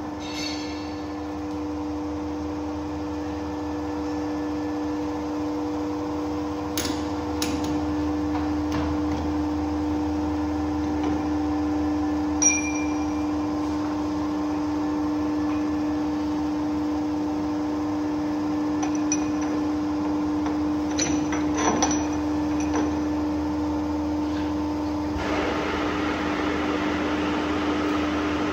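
Metal lathe running with a steady hum, broken by a few sharp metallic clicks and taps. Near the end a louder hiss joins in.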